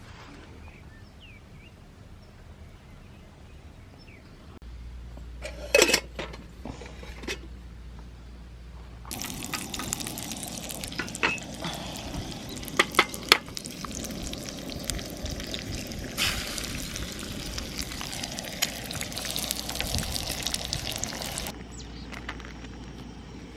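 A steady hiss of liquid in a cooking pan, with clinks and knocks of camp cookware. It starts abruptly about nine seconds in and cuts off near the end; a few sharp knocks come before it.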